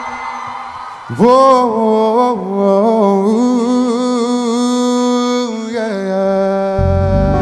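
Male singer holding long wordless notes with vibrato over soft accompaniment, the voice sliding up into a new note about a second in. Deep bass notes of the band come in near the end.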